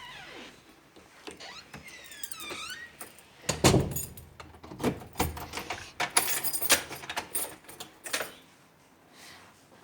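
A door being opened and shut on arriving home: knocks and clatter, the loudest a thump a little over three seconds in, with keys jangling. A few short high squeaks come in the first three seconds.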